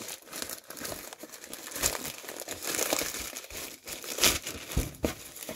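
Plastic poly mailer bag crinkling and rustling as it is pulled open by hand, in irregular crackles with louder rustles about two seconds and four seconds in.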